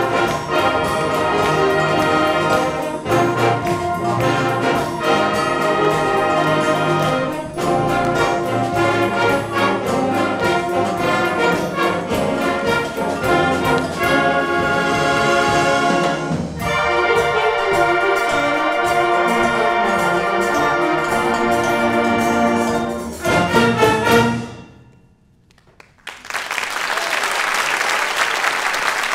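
Middle school honor concert band playing the closing bars of a piece, with strong regular accents, and ending on a loud final chord about 24 seconds in. After a moment's silence the audience applauds.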